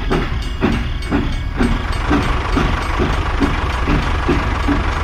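Battery-powered toy train running on plastic track: a steady motor-and-gear whir with a rhythmic chug about twice a second, getting slightly quicker toward the end.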